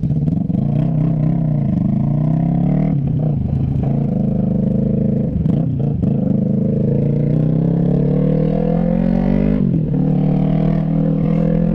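Yamaha MT-03's 321 cc parallel-twin engine running through a straight pipe with no silencer while riding, its pitch climbing under throttle and dropping sharply at gear changes about three, six and ten seconds in.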